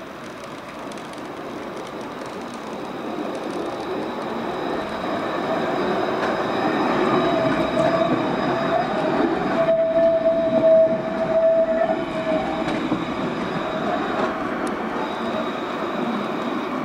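Alstom Citadis tram passing on street track, its running noise growing louder as it approaches and fading as it moves off. Midway a steady wheel squeal sounds for about three seconds.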